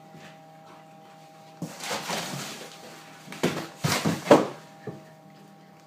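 Handling noise: a scraping rush lasting about a second, then a few sharp knocks and bumps, as the hard plastic-and-wood nest box and its parts are moved about.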